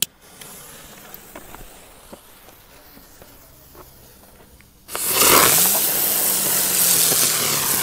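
A fuse sputtering faintly, then about five seconds in a Brummkreisel ground spinner ignites with a loud hiss and a low hum that rises in pitch and then holds steady as it spins.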